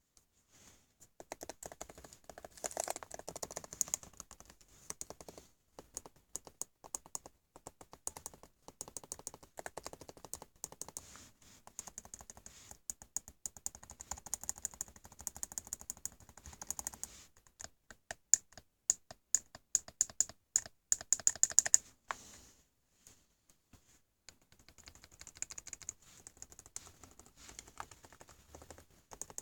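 2016 MacBook Pro butterfly keyboard being pressed in fast runs of keystrokes. Each press carries a high-pitched ping or crackle, centred on the Shift key. This is a keyboard fault that has persisted after a repair, and the owner finds it comes on once the machine is warm from heavy work. The clicking stops briefly a little past two-thirds of the way through, then starts again.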